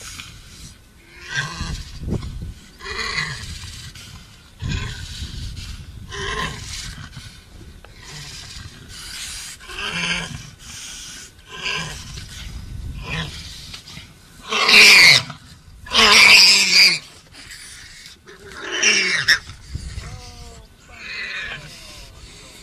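Lions growling as they maul a warthog, broken by a run of loud cries, which fits the warthog squealing in distress. The cries come about every second or two, and two of them, about two-thirds of the way through, are the loudest.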